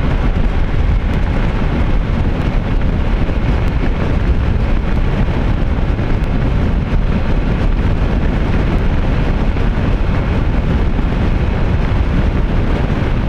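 Steady wind rush buffeting the microphone, with road noise from a Honda ADV 160 scooter riding at highway speed, close to its top speed of about 120 km/h.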